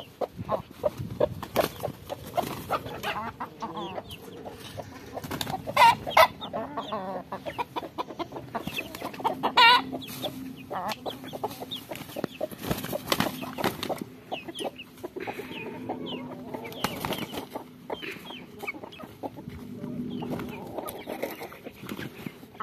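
A flock of chickens and roosters clucking and calling, with a few loud squawks about six seconds in and again just before ten seconds.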